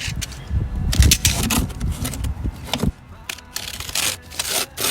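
Irregular rubbing and scraping handling noises, with a dull low knock about a second in.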